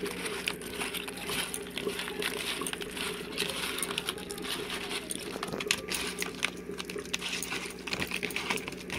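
Wet squelching and irregular clicking of a hand kneading raw prawns and turmeric in a plastic bowl, with a steady low hum underneath.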